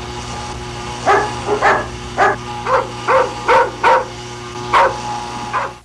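A dog barking repeatedly, about nine short barks at an uneven pace, over a steady low hum.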